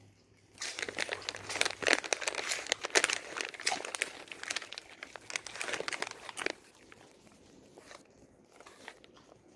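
Alaskan malamute crunching a hand-fed treat, a dense crackle of bites lasting about six seconds before it dies down to faint ticks.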